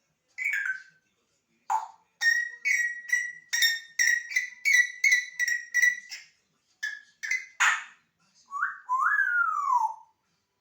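African grey parrot calling: a short falling whistle, then a fast run of repeated chirping clicks, about three or four a second, a harsh burst, and a whistle that rises and then glides down near the end.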